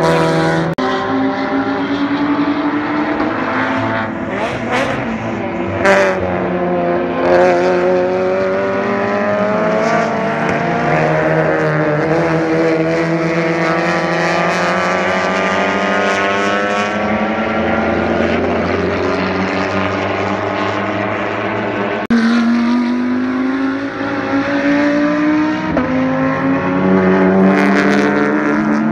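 Racing cars' engines at speed on a circuit, several pitches at once rising and falling as the cars accelerate and shift, with a few sharp cracks between.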